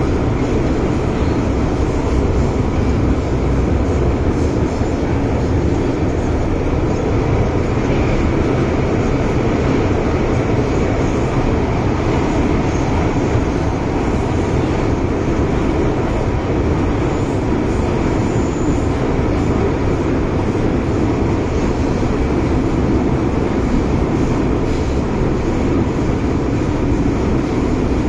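MTR Island Line M-Train running at speed through a tunnel, heard from inside car C404: a loud, steady low rumble of wheels and running gear. This is the 'thunder' rumble (行雷聲) that the uploader notes in this aging, high-mileage car.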